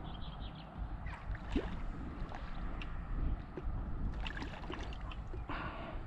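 Water sloshing and small splashes at the bank's edge, stirred by a just-released carp and the landing net, with a brief louder slosh near the end. Under it runs a steady low rumble of wind on the microphone.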